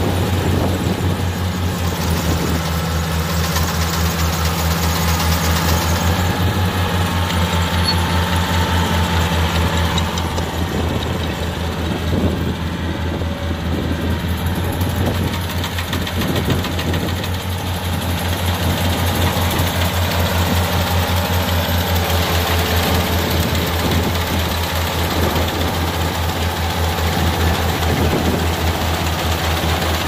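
Kubota rice combine harvester running steadily as it cuts rice: a loud, even, low engine hum.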